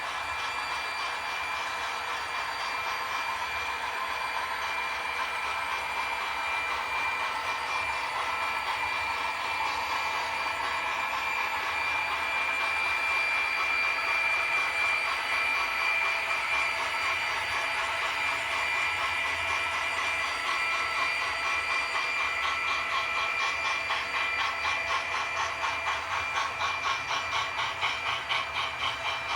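HO scale model freight train running on the layout: a steady electric whine from the locomotives and rattling clicks of wheels on the track. It grows louder toward the middle, and in the last few seconds the clicks settle into a quick, even rhythm.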